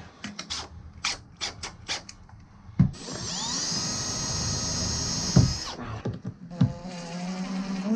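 Makita cordless drill running, first at high speed with a high whine for about three seconds, then a second, lower-pitched run near the end. Clicks and knocks of tools being handled come before it.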